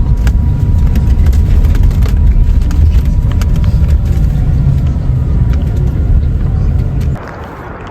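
Loud, steady low rumble with scattered faint clicks, cutting off suddenly about seven seconds in.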